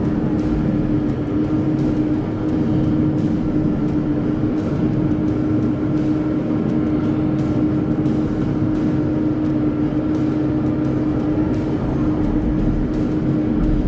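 Excavator's diesel engine running steadily, a constant drone with one held tone over a low rumble.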